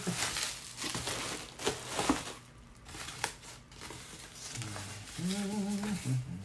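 Plastic bag crinkling as it is handled and pulled away from the wrapped item, loudest over the first two seconds and softer afterwards. Near the end comes a short hummed voice sound.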